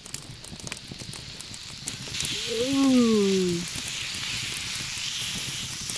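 Kangaroo steak sizzling on a hot cast iron grill pan over campfire embers. A steady hiss swells up about two seconds in as the meat goes down on the hot iron. Near the middle there is a short voice sound that falls in pitch.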